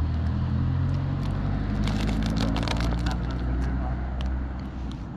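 A steady low engine hum, like a vehicle idling, with a thin plastic bag crinkling in bursts of clicks about two to three seconds in.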